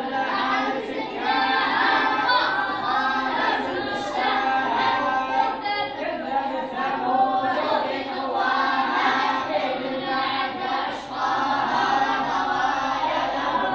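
A large group of children reciting the Quran aloud together, many young voices chanting at once without a break.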